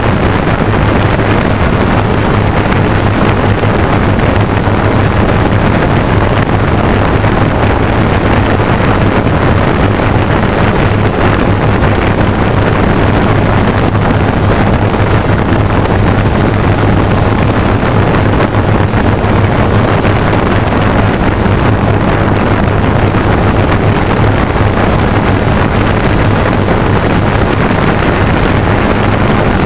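Remote-controlled multirotor drone's motors and propellers running steadily in flight, a loud, even low hum, heard from the camera mounted on the drone, with wind rushing over the microphone.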